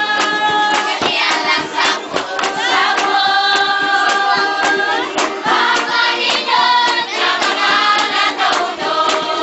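Group singing in held, choir-like notes over a quick, clicking percussion beat: music for a folk dance.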